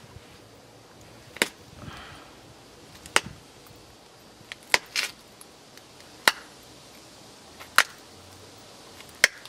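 Buffalo River chert being pressure-flaked: about seven sharp clicks, a second or two apart, as small flakes snap off the edge of a preform under a hand-held flaker.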